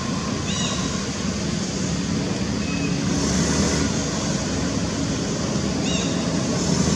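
Steady rushing outdoor background noise, with a short high chirp about half a second in and again near the end.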